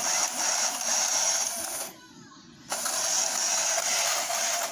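Small electric motor and plastic gears of a 1985 New Bright remote-control toy Corvette whirring in two runs. It stops about two seconds in and starts again under a second later.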